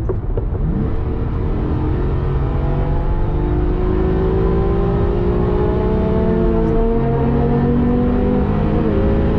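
Porsche 996 Carrera 2's 3.6-litre flat-six pulling hard under throttle, heard from inside the cabin. The engine note climbs slowly in pitch and breaks for gear changes, once about half a second in and again around seven seconds in.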